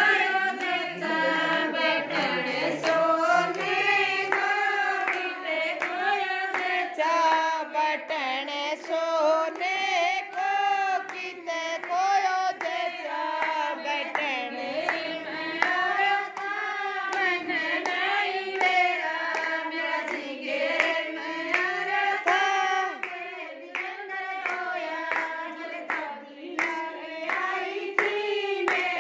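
A group of women singing a Haryanvi jachcha geet, a folk song for a new mother, in unison, with steady rhythmic hand clapping keeping the beat.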